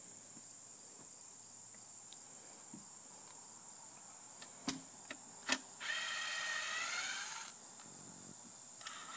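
A power drill runs at a steady speed for about a second and a half, just after two sharp clicks. Crickets chirr steadily and high-pitched underneath throughout.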